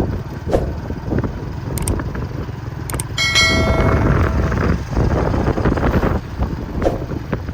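Diesel locomotive rumbling through a rail yard, with scattered clicks. About three seconds in comes a brief high, ringing metallic tone that fades out over a second or so.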